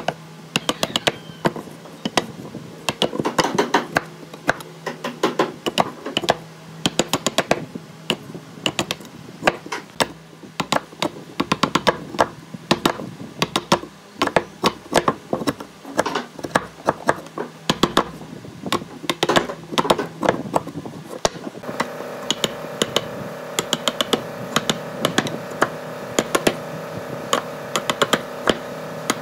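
A hand chisel paring out the waste between saw kerfs in a wooden rail, with wood chips cracking and snapping off in rapid, irregular clicks and taps. A steady hum comes in about two-thirds of the way through.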